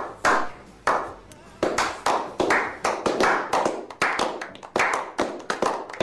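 A quick, uneven series of sharp clap-like impacts, each dying away fast, about three a second, coming closer together after the first second or so.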